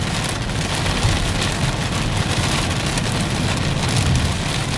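Hail mixed with heavy rain pelting a moving car: a dense, steady patter of many small hits over the low rumble of the car on the road.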